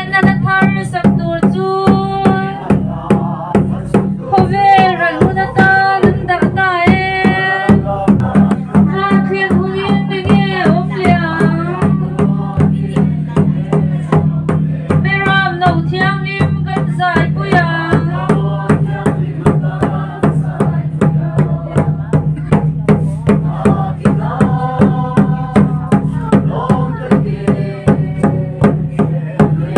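A crowd of people singing together in unison, accompanied by a large cylindrical Mizo khuang drum beaten in a steady rhythm of about two strokes a second.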